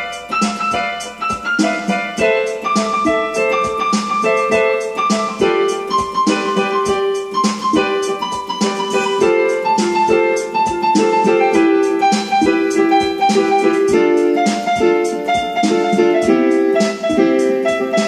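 Instrumental background music: a melody of short, evenly paced notes that steps downward in pitch over the first half, over a steady beat.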